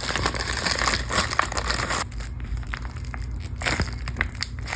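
Crinkling and crackling of hands handling squishy toys and their plastic packaging, a dense rustle for about two seconds, then scattered sharp crackles.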